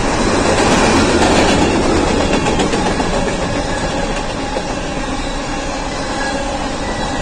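Fast freight train of covered hopper cars rolling past close by: a steady, loud noise of steel wheels on rail and rattling cars, loudest about a second in.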